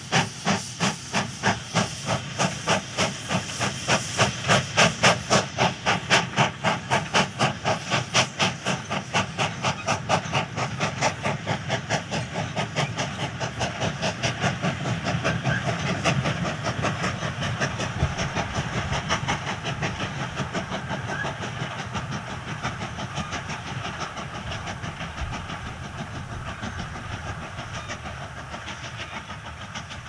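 Steam locomotive chuffing, its exhaust beats quickening as it gathers speed until they blur into a steady rush. The sound fades gradually through the second half.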